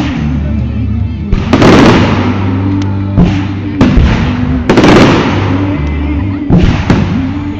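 Fireworks going off overhead in a show: about five loud bangs, irregularly spaced one to two seconds apart, with music playing underneath.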